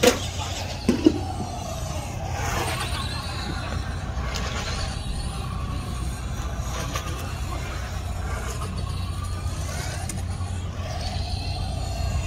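Radio-controlled model car running, its whine rising and falling in pitch as it speeds up and slows, over a steady low rumble. Two sharp knocks sound at the start and about a second in.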